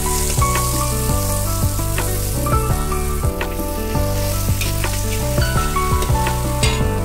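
Sliced chillies, shallots and garlic sizzling in hot margarine in a wok, with a metal spatula scraping and knocking against the pan as it stirs. Background music with a steady bass line plays underneath.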